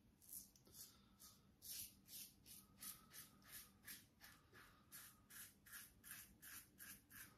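Double-edge safety razor scraping through lathered stubble in quiet, short strokes, about three a second.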